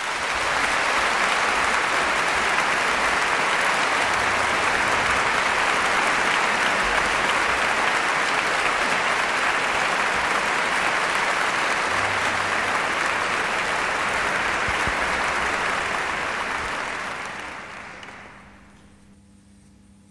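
Applause from a crowd, a dense steady clapping that fades away near the end.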